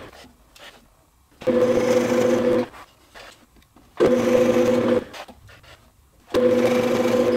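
Drill press running as a 3/8-inch twist bit bores through maple through a drilling template, heard three times for about a second each with quiet gaps between.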